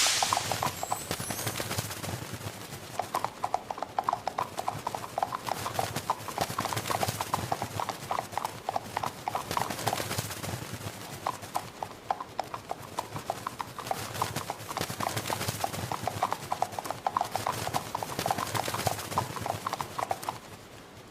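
Horse hooves clip-clopping in a quick, even rhythm: a hoofbeat sound effect. The hoofbeats grow louder about three seconds in and stop about a second before the end.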